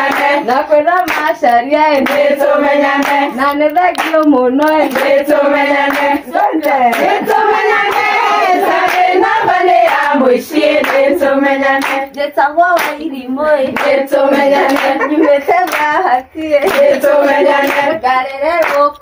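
A group of women singing together while clapping their hands along in time.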